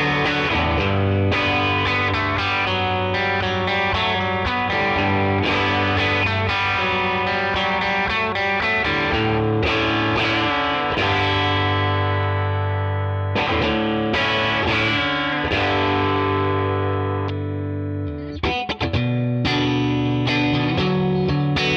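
TreeTone Songbird TT045 electric guitar played through an amplifier with some distortion: ringing chords and picked notes, with a brief break about eighteen seconds in before the strumming starts again.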